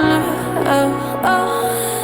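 Background pop song music.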